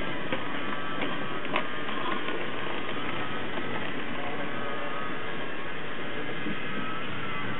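Trix Express model train running on its metal track: a steady rolling rattle with a faint motor whine, and a few sharp clicks over rail joints in the first two seconds.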